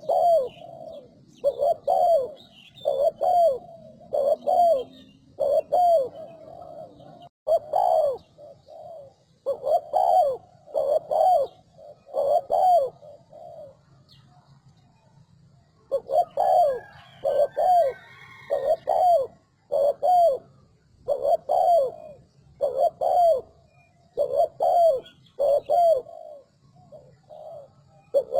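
Spotted dove cooing in a quick, steady series, about one coo a second, with a pause of a couple of seconds about halfway through. This is a fast-paced call of the kind played to stir up other doves.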